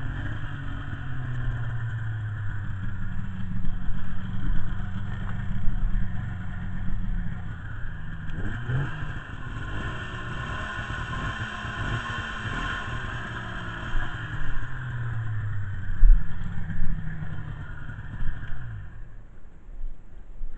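Polaris XLT snowmobile's two-stroke engine running at low speed, its pitch rising and falling with light throttle, winding down near the end.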